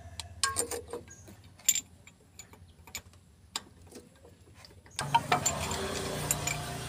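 Ratchet socket wrench clicking in short, irregular runs as a spark plug is loosened and unscrewed. A steady low hum comes in about five seconds in.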